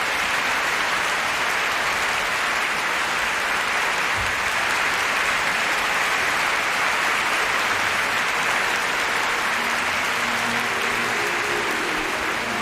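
Concert audience applauding steadily, with music starting faintly near the end.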